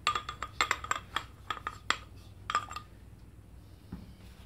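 Steel screwdriver shaft clinking and knocking against the inside of a Honda XL250 front fork's lower leg as a rag is pushed down it, about a dozen quick metallic clinks that each ring briefly, dying away after about three seconds.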